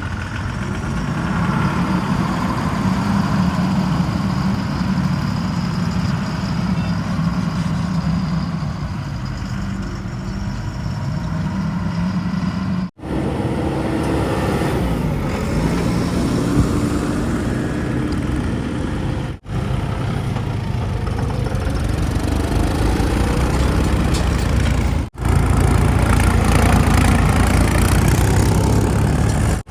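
Diesel engines of heavy machinery, a backhoe loader and tractors or tipper trucks, running while they work. The sound comes in several clips cut together, with three brief breaks. The last clip is the loudest and deepest.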